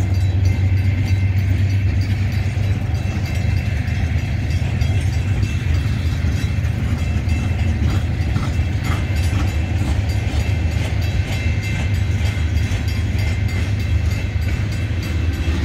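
Freight train of open-top hopper and gondola cars rolling past close by: a steady low rumble of wheels on rail with faint scattered clicks.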